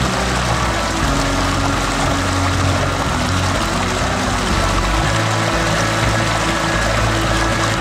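Background music of held low notes that change every second or so, over the steady rush of a shallow stream's running water.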